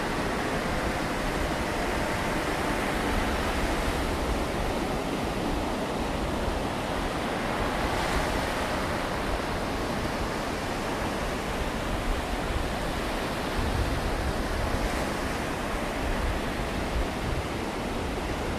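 Steady noise of sea surf breaking on the shore, with wind buffeting the microphone.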